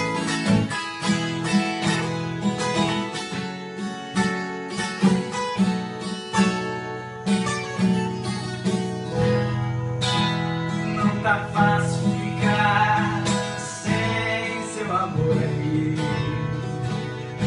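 Two steel-string acoustic guitars played together, a quick picked duet with runs of plucked notes over a bass line.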